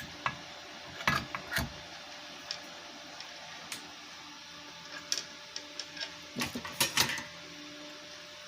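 Scattered small clicks and knocks of objects being handled, most of them bunched near the end, over a steady low electrical hum.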